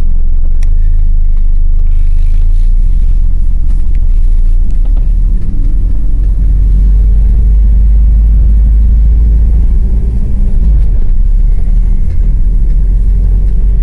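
Toyota Hilux 4WD driving slowly over a rough bush track: a loud, steady low rumble of engine and tyres, rising a little in pitch around the middle.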